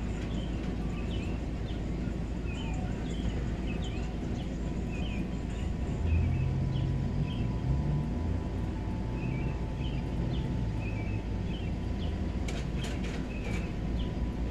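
Small birds chirping over and over against a steady low rumble, which swells from about six to nine seconds in. A few sharp clicks come near the end.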